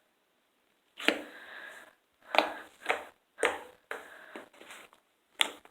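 Slime, sticky by the demonstration's own framing, being pressed and pulled by hand: about five sharp wet crackling pops, each trailing off in a short crackle, after a quiet first second.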